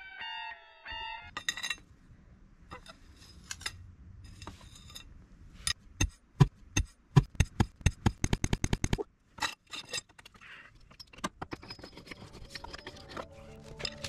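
Hammer striking a concrete foundation wall, chipping it away. There are scattered knocks, then a quick run of sharp, loud strikes about four a second in the middle, with some scraping of broken concrete and dirt around them.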